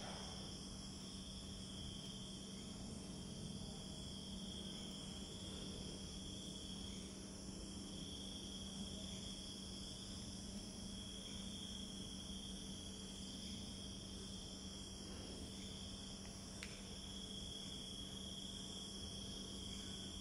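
Night chorus of crickets, a steady high-pitched shrill, over a low steady hum.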